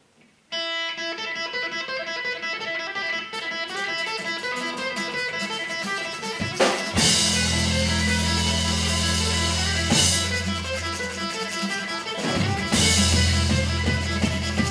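Punk rock band starting a song: an electric guitar plays an intro alone, then drums and bass come in loudly about seven seconds in. The band cuts out briefly about twelve seconds in and crashes back in.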